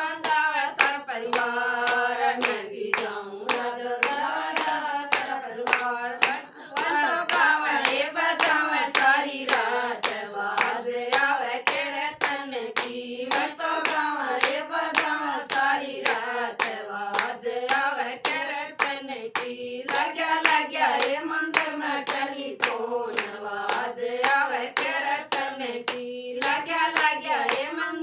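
Voices singing a Haryanvi devotional bhajan in kirtan style, with a steady beat of hand clapping kept in time.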